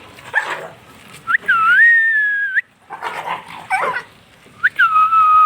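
A dog whining in two long high-pitched cries, the first about a second long and the second shorter near the end, with short rough dog sounds in between.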